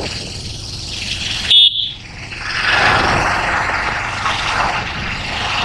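Motorcycle riding along an open road: steady wind rush over the microphone with engine and road noise, growing stronger after about two seconds. About one and a half seconds in, a brief high-pitched tone cuts through.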